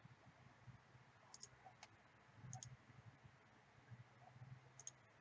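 Near silence with a few faint computer mouse clicks, scattered irregularly.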